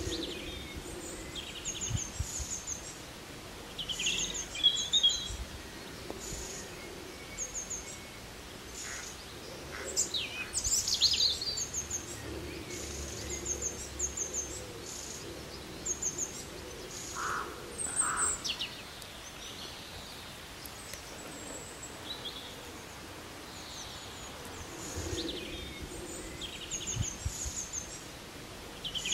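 Birds singing and calling outdoors: short high chirps repeating every second or two, with a few louder whistled phrases, over a steady background of open-air ambience.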